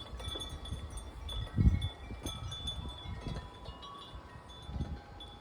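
Wind chimes ringing in a gusty storm wind, several metal tones sounding and fading over one another, with low wind buffeting on the microphone about a second and a half in and again near the end.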